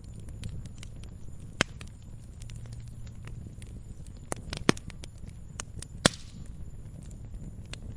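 Campfire burning with a steady low rumble and scattered crackles, and three louder wood pops, the last followed by a brief hiss.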